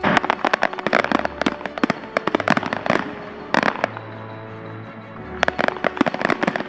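Fireworks going off in rapid strings of sharp cracks and bangs: a dense run for about three seconds, a short burst, then another dense run near the end. Background music plays under them.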